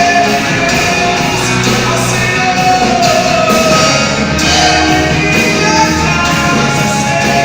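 Live Christian band playing a rock-style worship song, with singing over the instruments.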